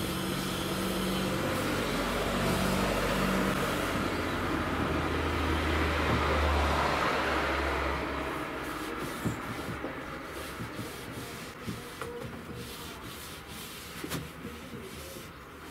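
A motor vehicle passing by: a steady engine-and-road noise that grows louder to a peak about six to seven seconds in, then fades away. A couple of faint ticks follow near the end.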